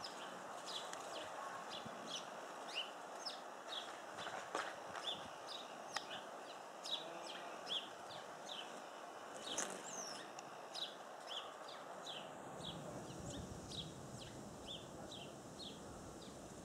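A small bird chirping over and over: short, high, falling chirps, two or three a second, over a steady background hiss. A low rumble comes in about three-quarters of the way through.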